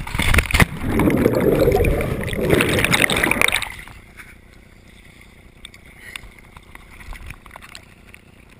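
River water sloshing and splashing against the camera held at the water's surface, loud for about three and a half seconds, then dropping to faint lapping with a few small clicks.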